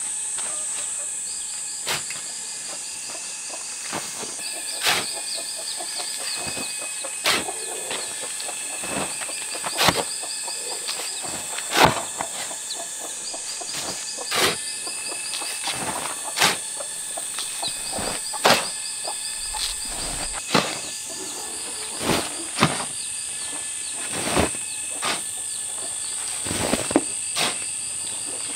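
Metal shovel scraping and knocking on hard ground every second or two while dry cement and sand are being mixed, over a steady high-pitched drone of insects.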